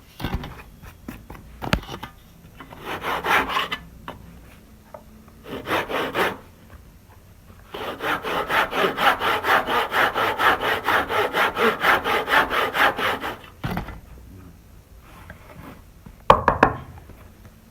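Hand saw cutting wood: two short bursts of strokes, then a long, steady run of quick back-and-forth strokes at about four a second. A few sharp knocks fall in the pauses, with a louder wooden clatter near the end.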